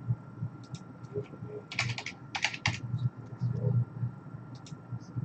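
Typing on a computer keyboard: a few scattered keystrokes, then a quick run of clicks about two seconds in, and a few more later.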